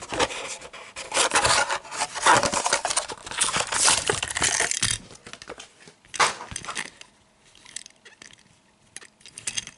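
Crinkling and rubbing of plastic and card packaging as a small diecast toy car is handled: a dense rustle for about five seconds, then quieter, with a few short clicks and taps.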